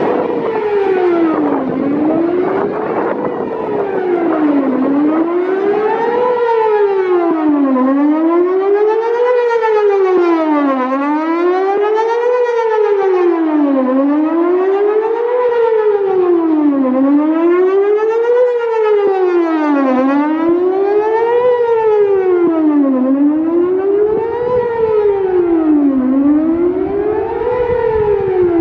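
Whelen WPS-4008 electronic outdoor warning siren sounding the Best Possible Protection test tone: a loud, steady rise and fall in pitch that repeats about every three seconds.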